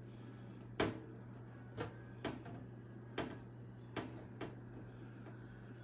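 Faint, short taps and knocks of a metal spoon spreading spinach filling along lasagna noodles in a baking pan, about six in all, over a steady low hum.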